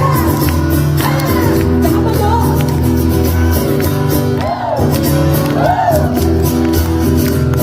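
Live concert music: held bass notes and chords play steadily, with short rising-and-falling vocal calls over them.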